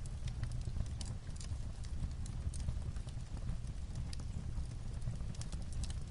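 Fireplace crackling with irregular sharp pops, mixed with light rain on a roof as a steady bed of noise.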